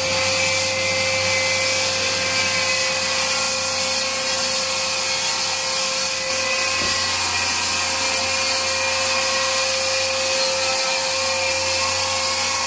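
Vacuum cleaner running steadily, sucking up sawdust: a constant motor whine over rushing air, with no change in pitch.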